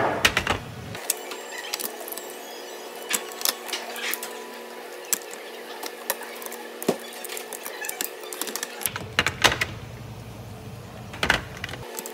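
Hard white plastic ice-cream tub collars being handled, shifted and set down on a counter: irregular clicks, knocks and clatter, loudest right at the start, around nine to ten seconds in, and again near the end.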